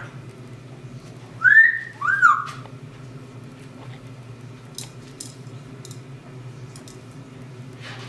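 Double yellow-headed Amazon parrot whistling twice in quick succession, about a second and a half in, each whistle rising then falling in pitch. A steady low hum runs underneath.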